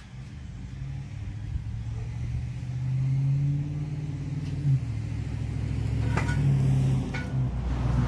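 A motor vehicle engine running nearby, a steady low hum that grows gradually louder, with a few sharp knocks in the second half.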